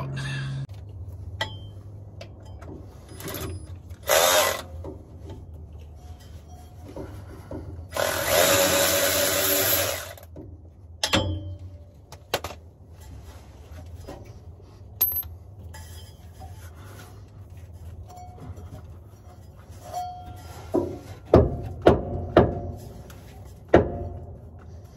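A power tool runs in a short burst and then in a longer burst of about two seconds, backing out the last mounting bolt of the motorhome's chassis alternator. Scattered clicks follow, then several sharp metal knocks near the end as the old alternator is worked loose.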